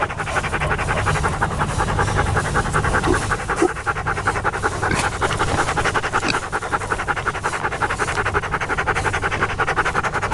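Several domestic pigs grazing close up, chewing and tearing grass and snuffling, a fast, continuous crunching.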